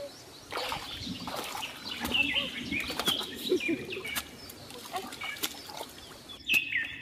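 Wet mud being dug and worked with a shovel in shallow pond water: irregular scrapes, splashes and clicks, busiest in the first second and a half, as the leak in the fishpond's earthen dike is plugged. Small birds chirp repeatedly in the background with short falling calls.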